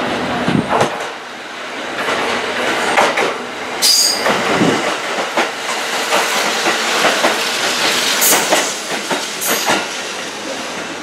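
Kintetsu 15400 series train running past at close range, its wheels clacking over the rail joints, with three brief high wheel squeals.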